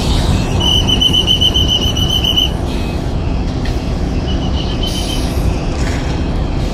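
Steady engine and road rumble inside a slowly moving bus. A high, rapidly pulsing electronic beep sounds for about two seconds near the start and briefly again about halfway through.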